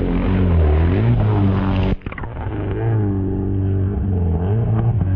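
Jet ski engine running at speed, its pitch rising and falling with the throttle. About two seconds in it breaks off for a moment and picks up again.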